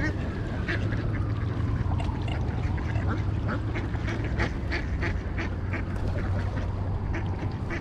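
Ducks quacking, many short calls one after another, over a steady low hum.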